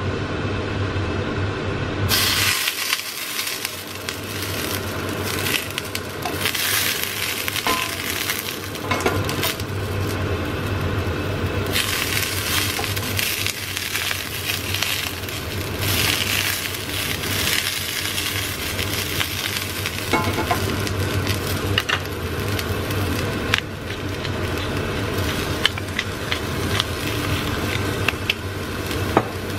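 Rosemary and vine cherry tomatoes frying in hot oil in a small square pan. The sizzling starts suddenly about two seconds in and carries on steadily, with occasional clicks of wooden tongs against the pan.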